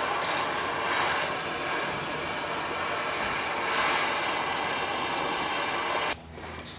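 Handheld propane torch burning with a steady hissing roar as its flame heats a seized steering pitman arm so it will expand and release from the shaft; the flame cuts off abruptly about six seconds in.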